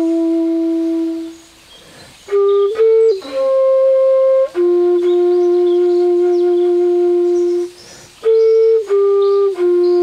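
Bamboo flute playing a slow melody: long held low notes with a few short higher notes between them, and two breaks for breath, about two seconds in and again near eight seconds.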